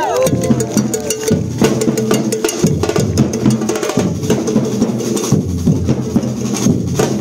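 Colombian drum ensemble playing live, a fast steady rhythm of many drum strokes with sharp wood-like clicks over pitched drum tones.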